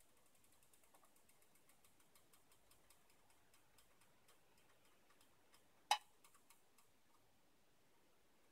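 Faint, rapid ticking, several ticks a second, from an electric hot plate reflowing solder paste on a circuit board, with one louder click about six seconds in; the ticking dies away near the end.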